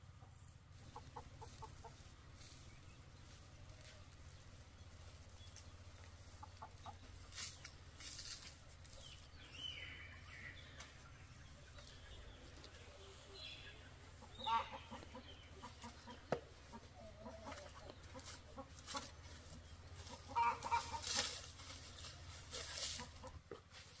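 Chickens clucking on and off, with several brushing strokes of a grass broom sweeping concrete steps.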